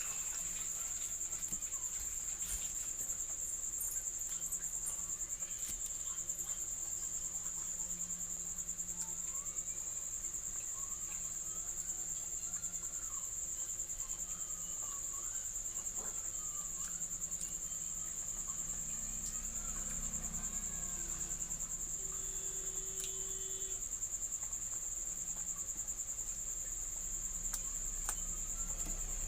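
Insects trilling in a steady, unbroken high-pitched drone, as crickets do, with faint scattered clicks underneath.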